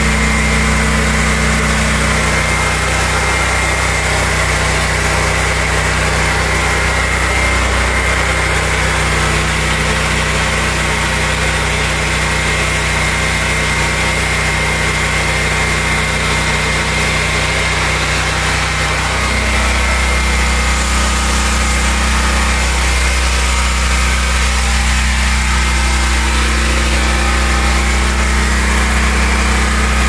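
Portable generator's engine running steadily at close range, a continuous even hum whose tone shifts about two-thirds of the way through.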